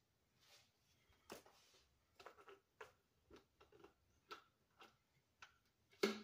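Faint scattered taps and clicks of things being handled, with one sharper knock near the end.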